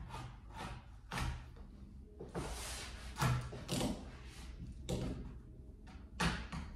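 Old cloth being stripped off a wooden pool table rail by hand: a string of short, irregular scraping and knocking sounds, the loudest about three seconds in and again near the end.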